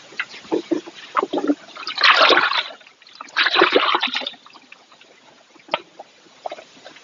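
Water splashing and sloshing in two loud bursts about a second apart, with scattered small knocks and drips around them.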